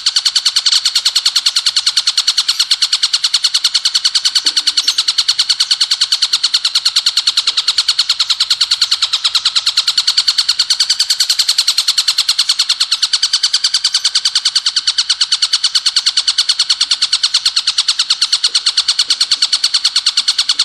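Ciblek gunung, a small prinia, singing a continuous high-pitched rattling trill in the rapid-fire 'bren' style, kept up without a break.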